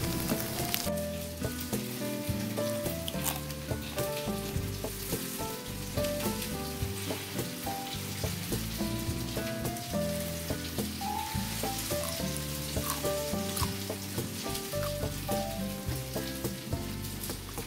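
Background music, a melody of short single notes, over a steady hiss.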